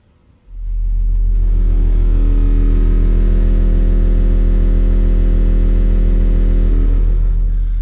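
12-inch subwoofer playing a steady 40 Hz test tone, a 'burp' that starts about half a second in and holds for about seven seconds, slightly weaker near the end. It is a clamped power test: the amplifier is pushing about 283 watts into the sub.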